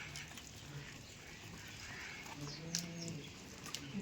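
Goat-pen ambience: a short low call a little past the middle, with scattered clicks and knocks.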